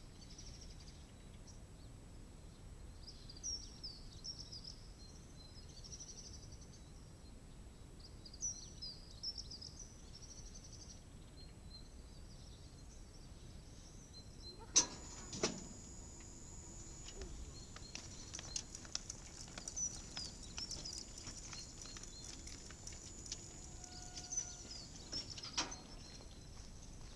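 Small birds chirping. About halfway through, the level-crossing barrier's drive gives a sharp clunk and runs for about ten seconds with a steady high whine and small clicks, ending in another clunk as the boom rises to open the crossing.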